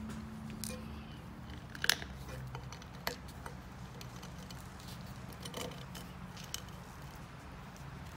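Hand deburring tool's hooked blade scraping around the edge of a drilled hole in a steel flat bar, with scattered sharp clicks, the loudest about two seconds in and another about a second later, over a steady low hum.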